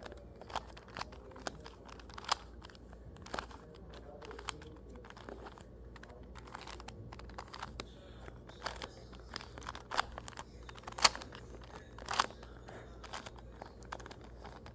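A 2x2 Rubik's cube being turned through an algorithm: a run of irregular plastic clicks and clacks as the layers are twisted, with a few louder clacks toward the end.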